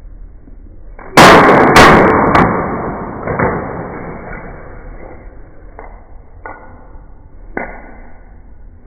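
A wooden hammer striking a plastic Rubik's cube, heard slowed down in slow-motion playback: a heavy hit about a second in that fades out over a few seconds, a second hit just after it, and a couple of smaller knocks later.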